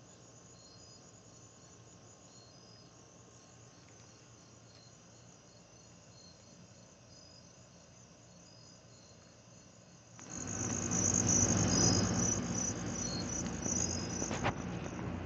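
Night insects, crickets, chirping steadily in high, thin tones. About ten seconds in, a much louder steady rushing background comes in suddenly, and the chirping carries on over it.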